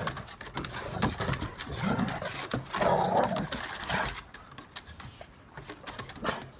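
Two dogs play-fighting, growling in rough bursts with scuffling, loudest about two to three seconds in and quieter near the end. It is play, not a real fight, though it sounds fierce.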